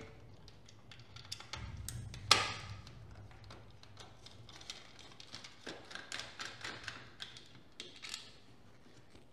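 Small clicks and taps of a screwdriver working a screw out of a multimeter's metal shield plate, and of the plate being handled; the loudest click comes a little over two seconds in.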